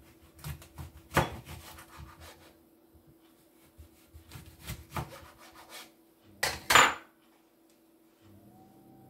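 Kitchen knife cutting through a lemon on a chopping board: short sawing strokes and knocks of the blade on the board, with one louder scrape about six and a half seconds in. A faint steady hum comes in near the end.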